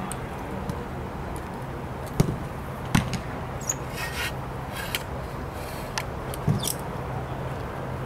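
A football being struck hard several times in shooting practice: sharp thuds about two seconds in, about three seconds in, and again about six and a half seconds in, over a steady low hum.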